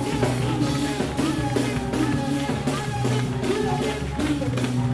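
Live gospel praise music: a band with drum kit and bass playing a steady beat while a woman sings lead into a microphone and the congregation claps along.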